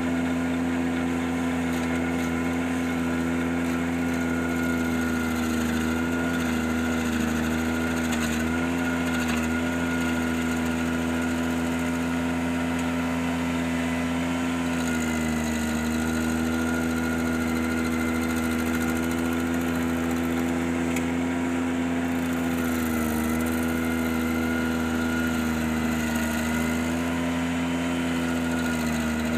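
Ventrac 4520Z compact tractor engine running steadily at high speed while driving a stump grinder attachment. Its pitch sags briefly a few times.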